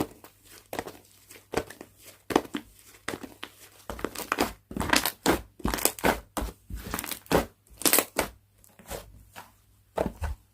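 Slime being kneaded, squeezed and stretched by hand, giving irregular crackling, squishing pops, busiest in the middle of the stretch.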